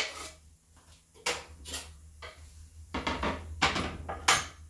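Knife scraping and tapping chopped onions off a wooden cutting board into a frying pan: a string of separate scrapes and knocks, the sharpest near the end.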